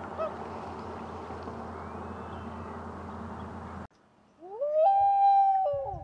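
Common loon giving a wail: a long, loud, mournful call that glides up, steps to a higher held note, then steps back down, starting about four and a half seconds in. Before it, a steady background hiss cuts off abruptly.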